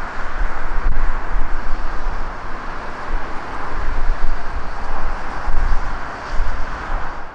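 Freight train rolling away along the line, a steady rumbling hiss from its wagons, with a heavy low rumble that swells and fades unevenly.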